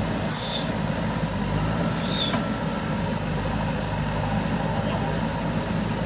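JCB 3DX backhoe loader's diesel engine running steadily, with two short high hisses about half a second and two seconds in.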